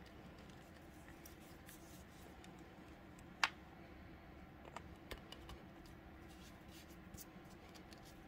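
Hard plastic figure parts handled and pressed together: faint scattered taps and clicks, with one sharper click about three and a half seconds in as a piece is fitted.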